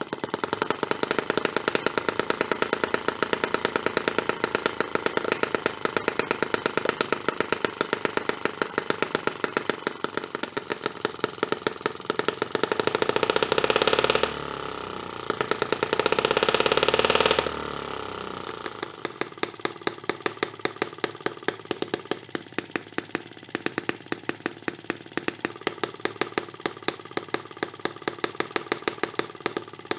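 A 2.6cc single-cylinder four-stroke model gasoline engine running with a rapid, even firing beat through its small stainless-steel muffler. About halfway through it runs louder and faster for a few seconds as the carburettor is adjusted, then drops back to a slower idle with each firing pulse distinct.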